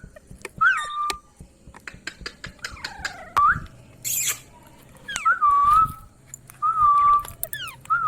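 Indian ringneck parrot whistling: about five short whistled notes, each flicking up and then held briefly, with sharp clicks between them and a brief harsh hiss about four seconds in.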